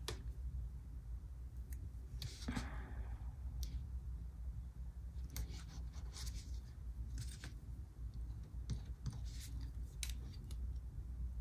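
Paper stickers being handled and worked on over a planner page: scattered soft paper crinkles and small clicks at irregular moments, over a low steady hum.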